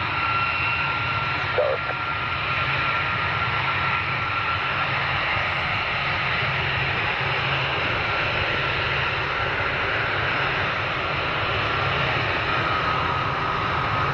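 Boeing RC-135 reconnaissance jet taxiing, its four turbofan engines running at low power: a steady rush of engine noise with a constant whine over a low rumble.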